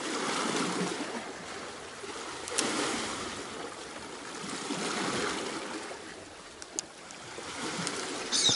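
Water lapping against the hull of a small fishing boat, in slow swells a couple of seconds apart, with a couple of light clicks.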